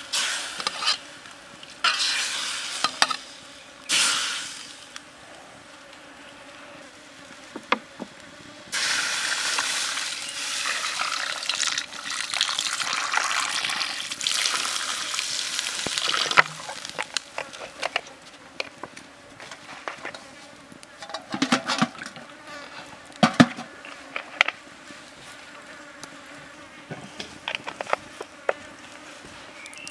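A metal ladle stirring pork ribs in a steel wok, in three short scraping bursts, then water poured into the wok in a steady rush for about seven seconds. After that, scattered crackles and pops from a wood campfire, with insects buzzing.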